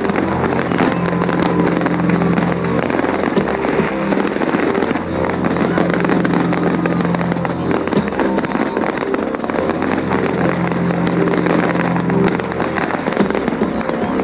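Fireworks bursting and crackling over a large bonfire in dense, continuous volleys, with a steady low drone underneath that changes pitch every few seconds.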